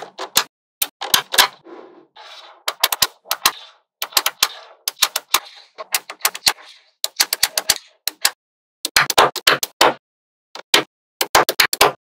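Small magnetic balls clicking as they snap together, in quick runs of sharp clicks with short pauses between.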